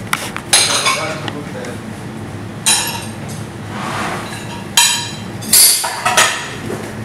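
Kitchen clatter: about five sharp clinks and knocks of metal utensils and dishes, each ringing briefly, over a steady low background hum.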